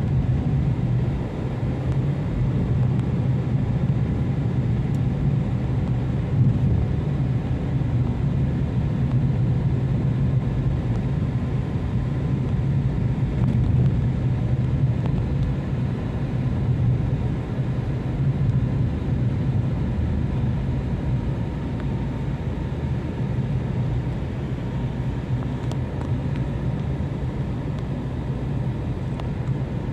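Steady engine hum and road noise heard inside a moving car's cabin, a continuous low drone with tyre rumble.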